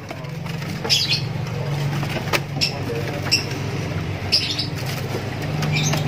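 Small caged birds fluttering and giving short, high chirps about once a second, over a steady low hum.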